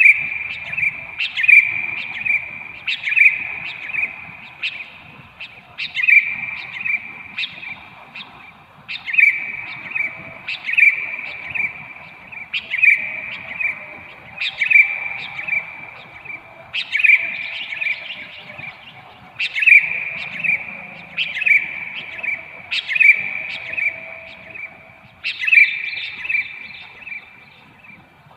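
Sooty-headed bulbuls (kutilang) calling: short bright chattering phrases of a few notes each, repeated about every one and a half to two seconds.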